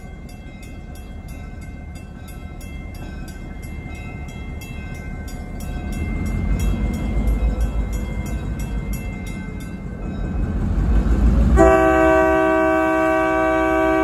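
Grade-crossing bell ringing steadily while EMD diesel locomotives rumble closer, growing louder. About eleven and a half seconds in, the lead locomotive's multi-tone air horn starts a loud, long blast.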